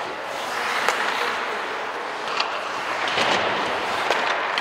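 Ice hockey play: skates scraping and carving the ice, with a few sharp clacks of sticks and puck about a second apart.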